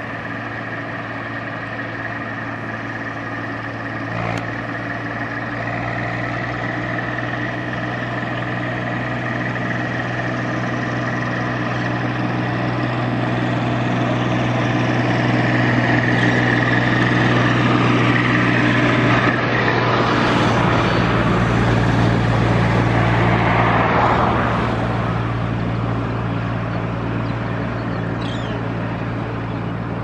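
Steady engine hum, with a louder rushing swell of passing traffic from about fifteen to twenty-four seconds in that then fades.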